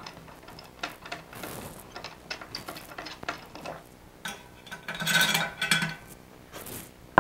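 Clamping knobs on a foam-cutting jig being unscrewed by hand: a run of small clicks and ticks from the turning threads, with a louder stretch of scraping and handling noise about four to six seconds in.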